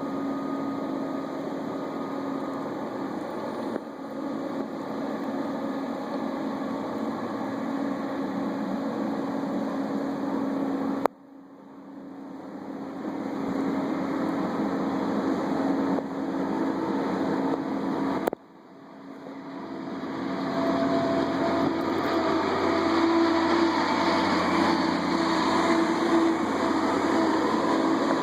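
Kubota compact track loader's diesel engine running under load while pushing snow, a steady drone. It breaks off abruptly twice and comes back, and in the last third it gets louder with higher whining tones as the machine works harder.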